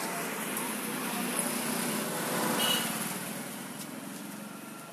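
A motor vehicle passing by, its engine noise swelling to a peak just past halfway and then fading away.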